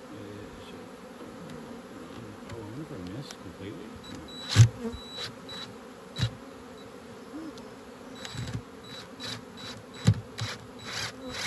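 Honey bees buzzing steadily around an open hive full of brood comb. Over the buzz come several sharp clicks and knocks from a cordless drill working at a screw in the wooden frame, the loudest about four and a half seconds in, with a cluster of short clicks near the end. The screw is not going in.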